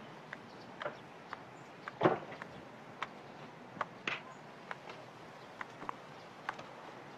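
A car door opening with a single loud clunk about two seconds in, over a faint outdoor background with scattered light clicks.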